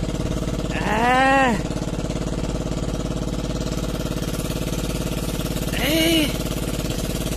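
Boat engine idling with a steady drone. Twice, about a second in and again near six seconds, a short pitched sound rises and falls over it.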